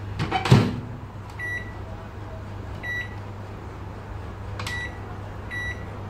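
Kenwood microwave oven door shut with a thud about half a second in, followed by four short high beeps from its control panel as the cooking time is set.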